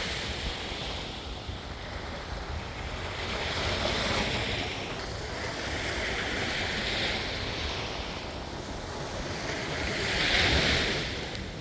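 Ocean surf washing ashore, swelling and fading in waves about every three seconds, with wind rumbling on the microphone.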